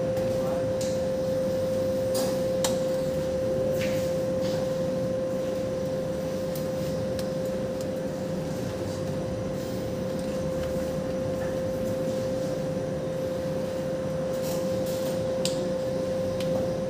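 A steady hum on one unchanging mid-high tone, with a few faint light clicks and knocks over it.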